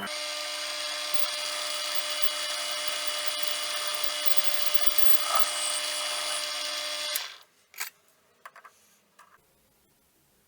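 Small metal lathe running at a steady speed with a high, even motor whine, which cuts off suddenly about seven seconds in; a few light clicks follow.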